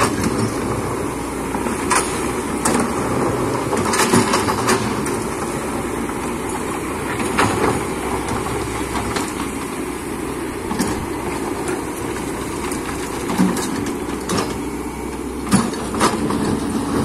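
Excavator's diesel engine running steadily under load, with occasional sharp knocks and clunks as it works the ground.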